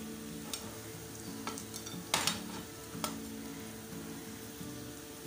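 Bitter gourd peels and seeds sizzling in hot oil in a non-stick frying pan while a metal slotted skimmer stirs and scoops them out. The skimmer scrapes and taps against the pan several times, loudest about two seconds in.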